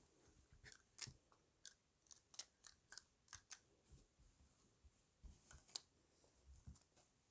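A puppy chewing a dried chicken foot: a quiet series of sharp, irregular crunches of bone and dried skin.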